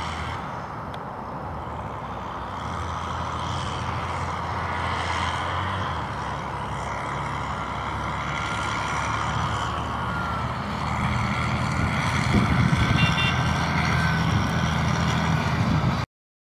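Valtra T131 tractor's engine running steadily as it pulls a silage trailer across the field, louder in the last few seconds, with a faint whine; the sound cuts off suddenly near the end.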